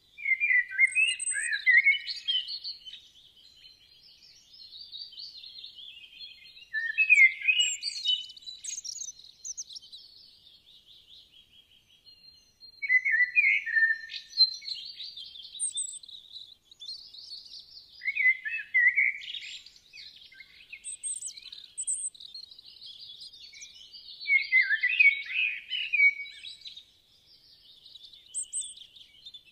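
Songbirds singing: a louder burst of chirps and trills every five or six seconds, with quieter twittering between.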